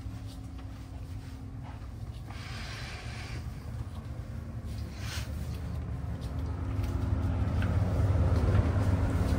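Steady low engine rumble with a constant hum, growing louder over the last few seconds.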